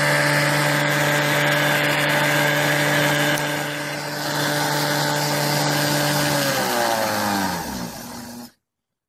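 Small electric mixer motor spinning a washing-machine pump used as a generator, running with a steady whine. About six and a half seconds in, its pitch falls as the motor slows and winds down, and the bulb it powers dims. The sound then stops abruptly.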